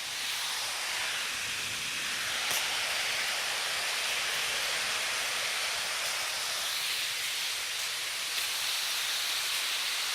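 Steady rushing of river water over a waterfall, an even hiss.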